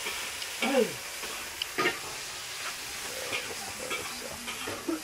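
Food frying in a wok with a steady sizzle, while a utensil stirs it and knocks against the pan a few times.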